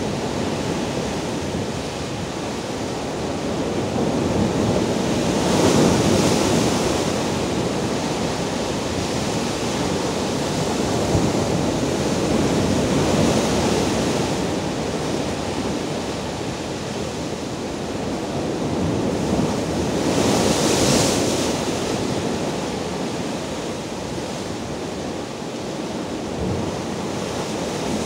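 Rough sea surf breaking and washing over shoreline rocks: a continuous rushing wash that swells and ebbs, with louder crashes about six seconds in and again about twenty-one seconds in.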